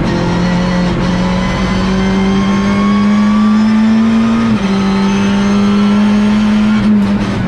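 Opel Astra TCR race car's turbocharged four-cylinder engine heard from inside the cabin, pulling in a high gear with its pitch climbing slowly. The pitch drops suddenly at an upshift about halfway through, climbs again, and falls once more near the end.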